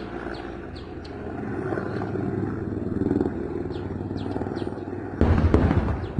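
A Russian-made military helicopter flying overhead, its rotor and engine running steadily. A louder, rougher burst of noise starts near the end.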